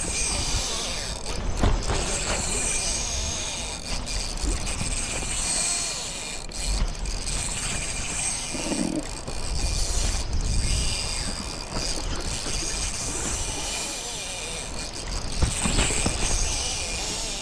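Daiwa Luvias 2506H spinning reel working under load while a large carp is played on an ultralight rod, with gusty wind on the microphone.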